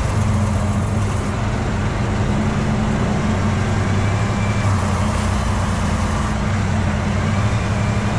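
Logging truck's diesel engine running steadily under way: a low, even drone over a haze of road noise.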